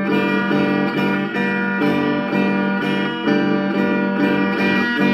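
Electric guitar strummed in a steady rhythm of chords, an instrumental stretch between sung lines.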